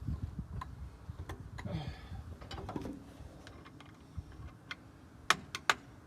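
Hand work on steel parts: scattered clicks and light knocks over a low rumble of handling, then three sharp, loud clicks close together near the end.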